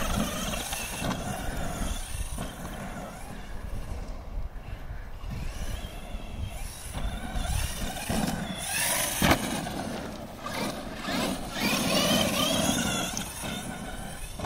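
Electric motor of an FTX Carnage RC truggy whining as it is throttled on and off, its pitch rising and falling repeatedly, with a single sharp knock about nine seconds in.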